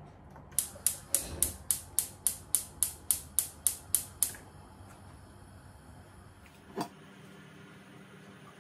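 Gas hob's spark igniter clicking in a quick even run, about three or four clicks a second for nearly four seconds, then stopping. A single knock follows a few seconds later.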